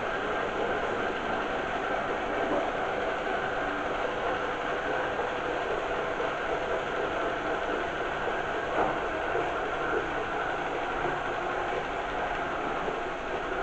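Primo robot vacuum cleaner running: a steady motor and brush whir at a constant level, with a small knock about nine seconds in.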